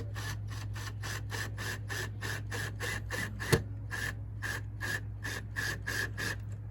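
Power drill/driver set to its lowest setting driving a screw, clicking evenly about three times a second and stopping near the end. There is one sharper knock about midway.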